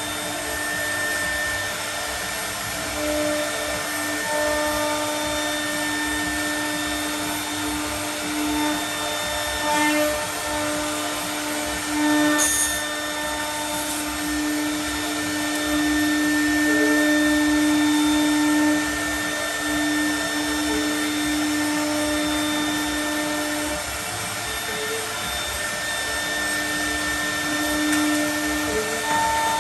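Milling router cutting aluminium composite panel: steady whining tones over a constant rushing noise, growing louder for a moment about twelve seconds in and again for a few seconds a little later.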